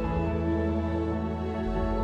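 Background music: slow ambient new-age music with long held notes.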